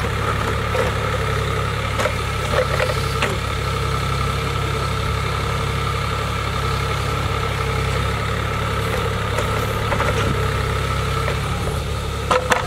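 Mini excavator engine running steadily while the excavator digs, with a few short, sharp knocks along the way.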